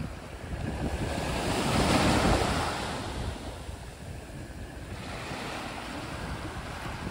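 Small sea waves breaking and washing up a sand-and-pebble beach. One wash swells about a second in and fades by the middle, and another builds near the end. A low rumble of wind on the microphone runs underneath.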